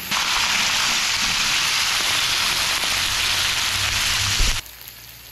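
Pork belly and kimchi sizzling loudly on a hot griddle pan: a steady frying hiss that starts suddenly and cuts off just over four seconds later, with a low thump just before it stops.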